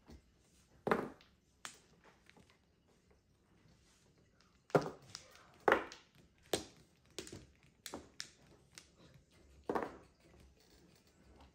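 Mahjong tiles being clacked down on the table as they are played and discarded: about ten sharp clacks at irregular intervals, two early and the rest bunched from about five seconds in.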